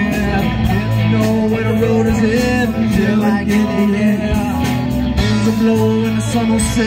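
Live rock band playing a song: electric guitar and drums keeping a steady beat, with a melody line that slides in pitch.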